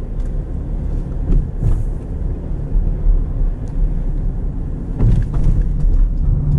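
Car moving along city streets: a steady low rumble of road and wind noise, rising and falling slightly.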